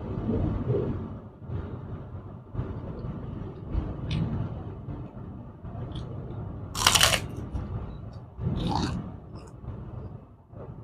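A person chewing and eating food close to the microphone, with a sharp crunch about seven seconds in and another near nine seconds, over a low steady rumble.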